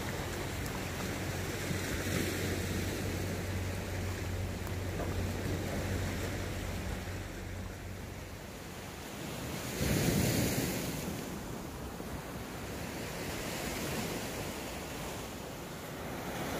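Sea waves washing on the shore with wind on the microphone, a steady rush of noise that swells louder about ten seconds in.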